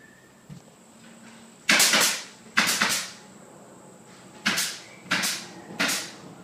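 Footsteps on a paver patio: five or six scuffing steps at a walking pace, with a gap in the middle.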